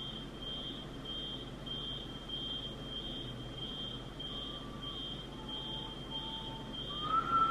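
An alarm beeping: short, high beeps on one steady pitch, evenly spaced at a bit under two a second, over a faint low background with a few soft held notes.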